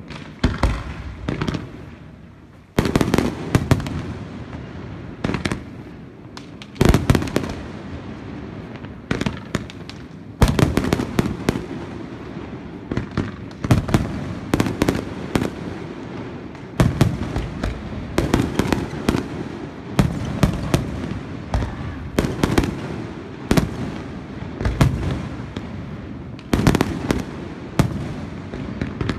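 Aerial fireworks by Pirotecnia Ferrández, a rapid run of sharp bangs from shells launching and bursting, coming in clusters every second or two. There is a short lull about two seconds in before the bangs pick up again.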